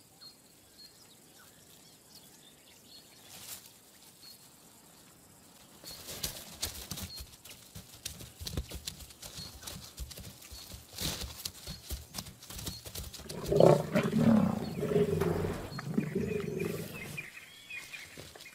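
A lion attack on a young giraffe: from about six seconds in, scuffling, thuds and rustling of a struggle in dry brush, then loud lioness growls and snarls for several seconds from about two-thirds of the way in.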